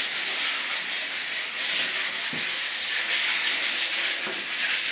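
Fine-grit sandpaper rubbed by hand over a stained and polyurethaned fiberglass door, making a steady scratchy hiss of back-and-forth strokes. It is a light scuff-sanding to take off flaking finish and give the surface tooth before priming.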